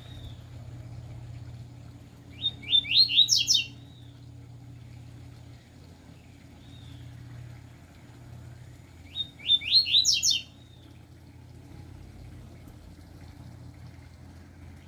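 A caged songbird singing two short phrases about seven seconds apart, each a quick run of high notes lasting about a second, with faint short call notes between them. A steady low hum runs underneath.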